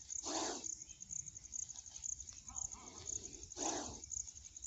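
Indian cobra hissing twice in short breaths, once at the start and again about three and a half seconds in, with its hood raised in a defensive, agitated posture. A steady, pulsing trill of crickets or other insects runs underneath.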